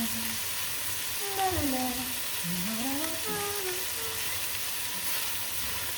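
Chopped onions and garlic sizzling steadily in a pan of butter and olive oil, cooking down until translucent. A faint voice is heard in the middle.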